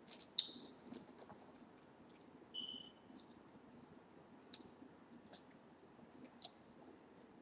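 Paper food wrappers crinkling as fries are picked out of them, then scattered small clicks of eating, with fries being chewed. A brief high-pitched tone sounds about two and a half seconds in.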